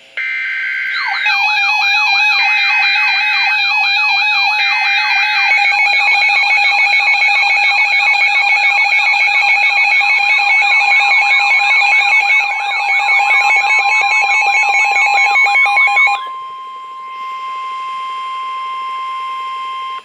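A S.A.M.E. weather alert radio going off for a tornado warning. Three short rasping bursts of SAME data tones come first, then the radio's own fast-warbling alarm. About ten seconds in, the steady 1050 Hz NOAA Weather Radio warning tone joins, and it carries on alone after the warble cuts off near the end.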